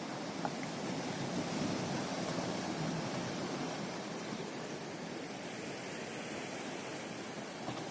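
Steady rushing noise of wind and small waves lapping at the shore, with one faint click about half a second in.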